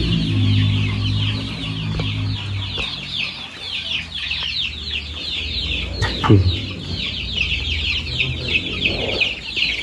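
A crowd of young chicks peeping nonstop in rapid, high, falling chirps, the kind of insistent peeping chicks make when frightened or cold. A lower falling chicken call cuts in about six seconds in.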